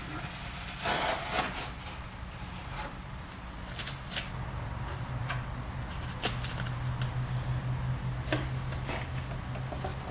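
Painter's tape being peeled off a painted RC car body: scattered short rips and crinkles of tape and plastic, with a low steady hum setting in about three seconds in.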